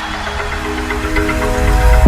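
Electronic background music: sustained synth chords with a low swell building up toward a beat drop.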